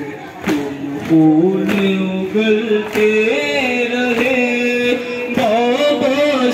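Men's voices chanting a noha, a Shia Muharram mourning lament, in a long-held wavering melody. Sharp slaps, likely hands beating on chests (matam), come about once a second.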